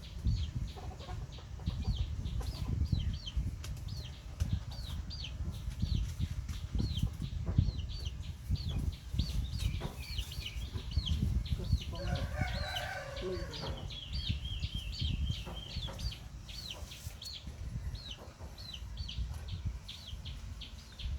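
Chickens: a steady run of short, high peeps, two or three a second, with a rooster crowing once about halfway through. Low rumbling and bumps run underneath.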